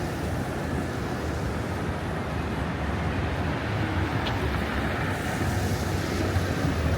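Steady city street noise: a wash of passing traffic with a low rumble.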